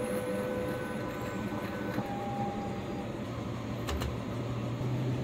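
Automatic conveyor pancake machine running: a steady mechanical hum with a few whining tones that come and go, and a single click about four seconds in.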